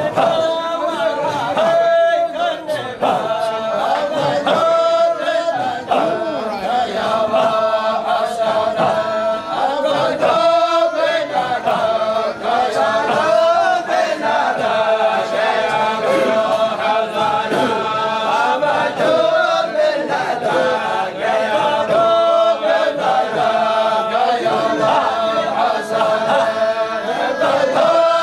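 A group of men chanting Sufi dhikr together in unison, unaccompanied, in a hadrah, one held note running steadily under the chant.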